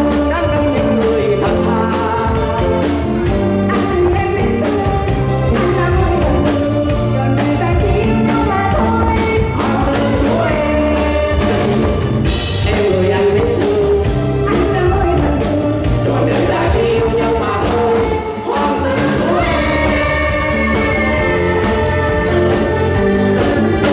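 Live band with electronic keyboards and a drum kit playing a song at a steady beat, with a man and a woman singing a duet over it through microphones.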